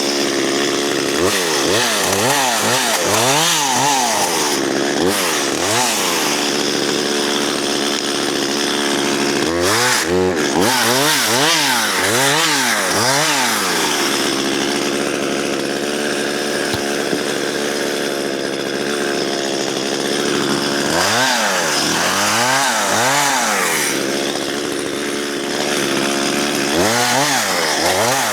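Chainsaw running and cutting through spruce logs. Its engine speed swings up and down again and again in several stretches, with a steady run at even speed in the middle. The chain is dull and struggles through the wood.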